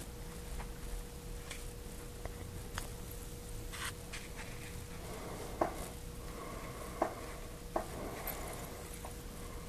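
Soft rustling of fur and fabric with a few light clicks as a long-haired cat moves about and settles onto a lap, over a faint steady hum.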